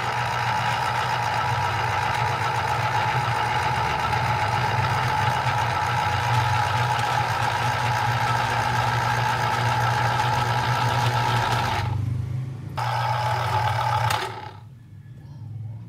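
Electric citrus juicer's motor running with a steady hum as an orange half is pressed down on its reamer cone. The motor cuts out briefly about twelve seconds in, runs again, then stops shortly before the end as the fruit is lifted off.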